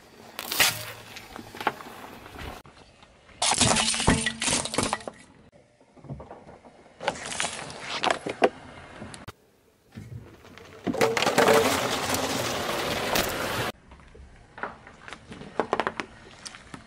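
A car tyre rolling slowly over small objects on asphalt and crushing them: a tube of paste, a plastic soft-drink bottle, a squishy toy. It comes as several short separate bursts of crunching and cracking, the longest and loudest a crackling stretch of about three seconds past the middle.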